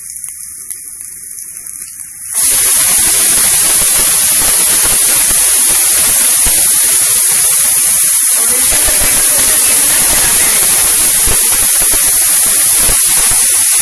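Hot oil with cumin seeds and green chilli sizzling in a nonstick pan. About two seconds in, sliced potato goes in and the sizzle jumps to a loud, steady frying hiss.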